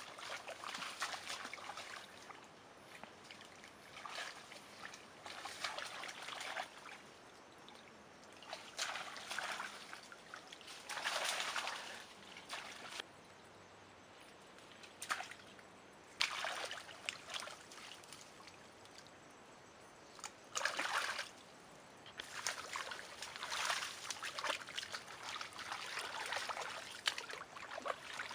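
Hands and feet sloshing and splashing in shallow muddy water, in irregular bursts with short quieter gaps between them.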